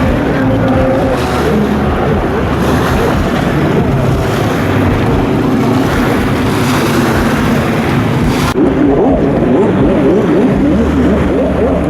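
Jet ski engines running at speed under a steady hiss of water. About eight and a half seconds in, the sound changes abruptly: the hiss drops away and the engine note rises and falls repeatedly, as with revving through turns.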